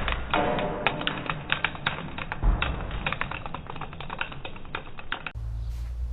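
Rapid, irregular clicks and taps. About five seconds in, they cut off abruptly and give way to a low steady hum.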